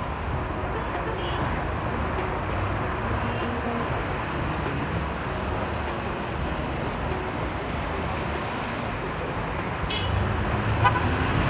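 Steady road traffic noise: a low rumble of passing vehicles.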